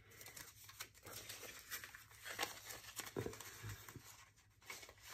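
Paper dollar bills rustling and crinkling faintly as they are handled and counted by hand.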